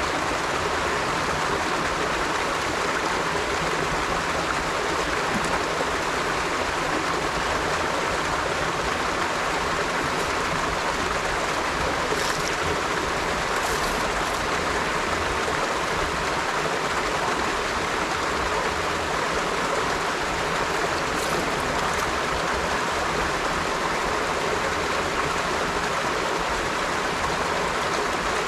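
River water flowing steadily over stones: a continuous, even rush of running water with a light bubbling.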